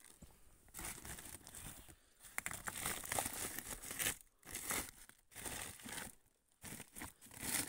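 Woven plastic sacks rustling and crinkling as they are handled, in a run of uneven bursts with short pauses between.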